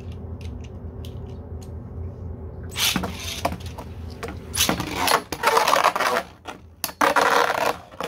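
3D-printed Beyblade spinning tops clattering and colliding in a stadium. After a quiet stretch with a low hum and a few small clicks, loud rattling clashes start about three seconds in, with several sharp hits.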